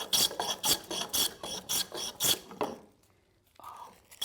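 Japanese hand plane (kanna) shaving the wooden surface of a joint in quick short strokes, about four a second, with the blade set out for a thick cut of about 10 microns. The strokes break off after nearly three seconds.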